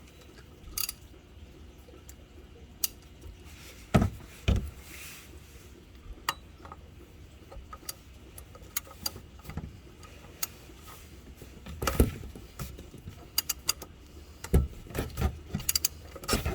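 Hand tools clicking and knocking against metal as the oil filter housing is worked loose for draining, in scattered sharp clicks with a few louder knocks about four seconds in, around twelve seconds and in a cluster near the end.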